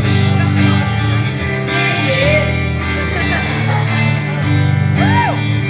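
Live band music without lead vocals: strummed guitar over sustained bass notes in an instrumental passage of the song.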